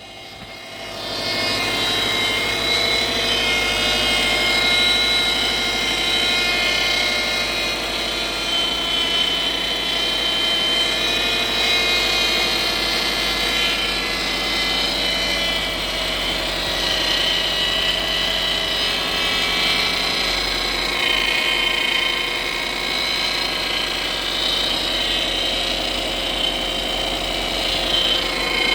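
Power steering pump of a 2007 Subaru Impreza whining over the running engine: a loud, steady high whine made of several tones that swells up about a second in and wavers slightly in pitch. The whine is the fault being shown, a humming power steering pump.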